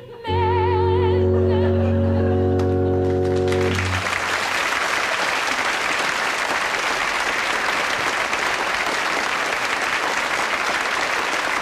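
A woman's voice ends a song on a held note with vibrato over a sustained chord. The chord stops about four seconds in, and an audience then applauds steadily.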